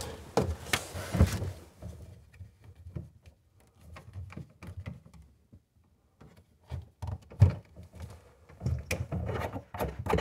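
Irregular knocks, thumps and rustling from handling plastic sink drain-trap pipes and hand-tightening their slip nuts inside a wooden vanity cabinet, with the sharpest knock a little after halfway.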